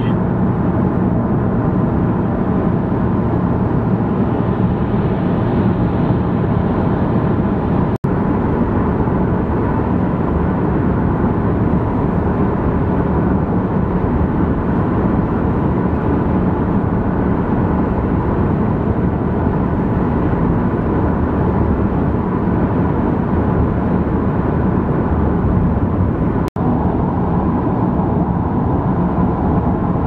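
Steady engine and road noise inside a Vauxhall Astra cruising at motorway speed, about 70 mph, with a constant low drone. The sound cuts out for an instant twice.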